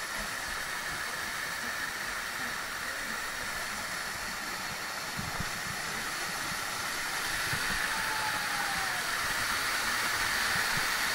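Steady rush of flowing water, a hiss that grows slightly louder toward the end. A faint falling whistle sounds about eight seconds in.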